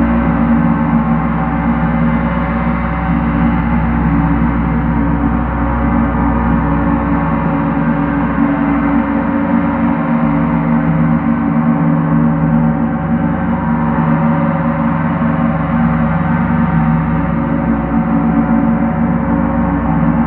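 Large metal gong played with two felt-headed mallets in a continuous soft roll, keeping up a steady, dense wash of many overlapping tones with a strong low hum. No single stroke stands out.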